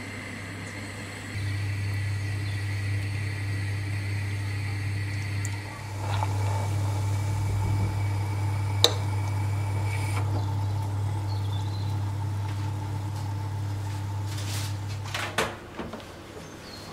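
Steady low hum of a kitchen appliance, with one sharp click about nine seconds in. The hum stops shortly before the end, where a few knocks follow.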